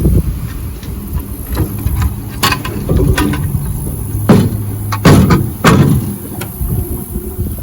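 Electric trolling motor humming low and steady on a small boat, with wind buffeting the microphone and several sharp knocks and bumps against the boat, about five in all.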